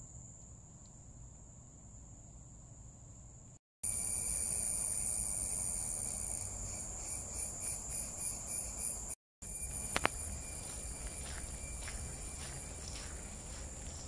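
Forest insects such as crickets or cicadas singing in a steady, high-pitched drone, with one pulsing about five times a second in the middle. Footsteps on the trail and a sharp snap come in during the last few seconds.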